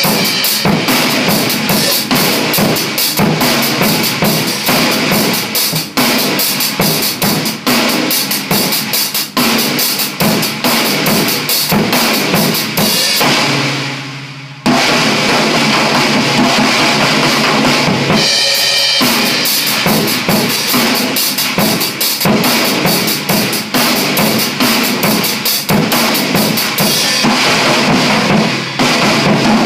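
Drum kit played in a busy groove with bass drum and cymbals, around a WFL School Festival 8x15-inch snare drum tuned low. About halfway through the playing stops for about a second, leaving the drums ringing out, then starts again.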